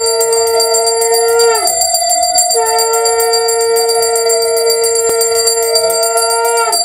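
Conch shell (shankha) blown in two long blasts, each a steady pitched note that sags and dies away at its end, the second starting about two and a half seconds in. A brass hand bell rings rapidly alongside, as at the opening of a Hindu puja.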